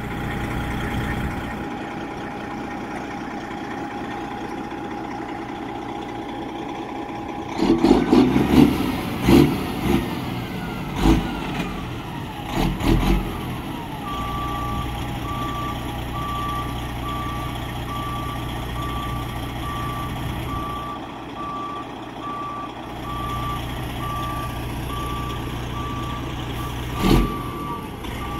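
Western Star semi tractor's Detroit Series 60 12.7-litre diesel running, with a steady tone over it for the first seven seconds. A run of loud knocks and thumps comes around eight to thirteen seconds in. From about halfway a reversing alarm beeps steadily over the engine.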